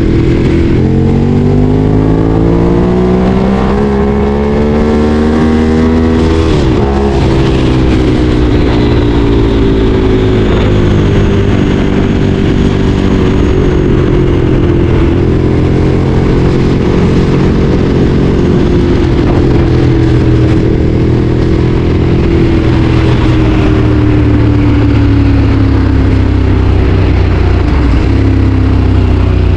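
Ducati Streetfighter 848's L-twin engine under way: the revs climb for several seconds, drop sharply at a gearshift about six seconds in, then hold and slowly fall before picking up again near the end.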